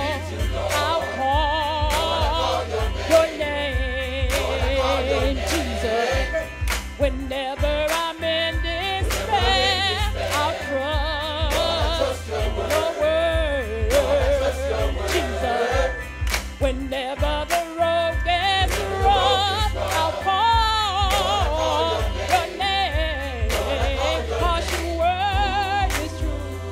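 Gospel choir singing with a lead singer out front, over a steady deep bass line, with hands clapping along to the beat.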